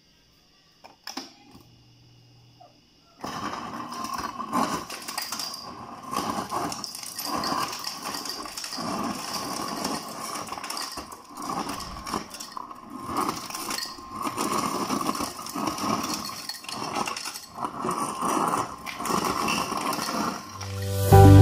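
Samsung refrigerator door dispenser set to crushed ice, dispensing: ice chips clatter into a glass held against the paddle, with many small knocks over a steady running noise, starting about three seconds in.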